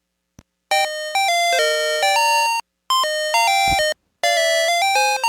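VTech Alphabert toy robot playing a bright electronic beeping jingle through its small speaker, likely its farewell tune after saying goodbye. The jingle is made of stepped notes in three short phrases with brief gaps between them. A soft click comes just before the tune starts.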